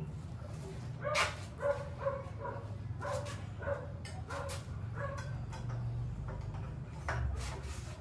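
A dog barking in a quick run of short barks, a few a second, with one more bark near the end.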